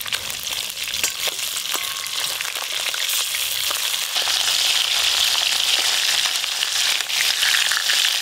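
Rohu fish pieces frying in hot mustard oil in a karai: a steady crackling sizzle that grows louder about three to four seconds in.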